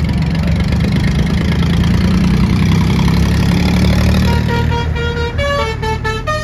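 Motorcycle and car engines in a loud low rumble. About four and a half seconds in, a vehicle's musical horn starts playing a tune of short stepped notes.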